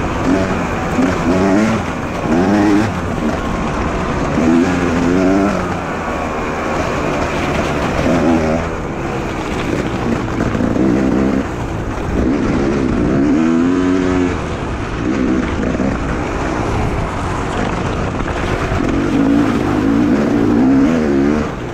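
Beta 300 two-stroke enduro motorcycle engine under hard riding, revving up and falling back again and again as the throttle is opened and shut.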